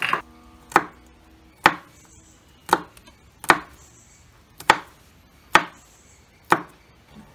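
Garlic cloves being chopped with a large kitchen knife on a wooden chopping board: eight sharp knife strikes on the board, about one a second.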